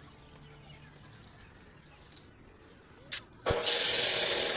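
A few light clicks, then about three and a half seconds in a power tool starts working stainless steel with a loud, steady hissing grind and a thin whistle.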